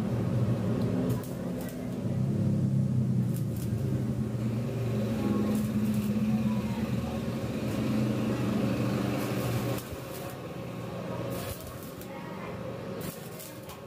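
Stick arc welding with a small 450-watt Izumi MO 120 inverter welder on rusty angle iron: a steady low hum with scattered sharp crackles from the arc. The low hum falls away about ten seconds in while the crackles go on. The metal is heavily rusted, which makes it hard to weld.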